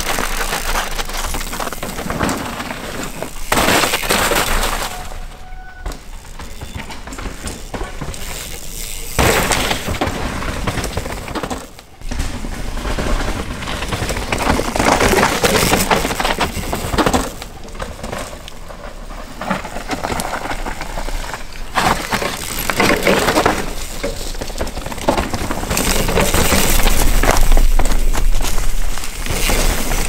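Knolly Delirium mountain bike riding down a dirt forest trail: knobby tyres crunching and rattling over dirt, roots and debris. The sound changes abruptly several times.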